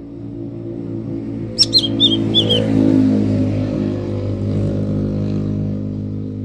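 A motor vehicle's engine hum swells as it passes, loudest about halfway through, then slowly fades. About a second and a half in, a small bird gives a quick run of four or five high chirps over it.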